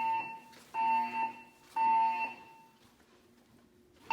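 Siemens MXL-V fire alarm speakers sounding the temporal-three evacuation tone: three half-second beeps a second apart, then a pause, with the next group of three starting near the end. This is the building's evacuation signal, looping between voice messages.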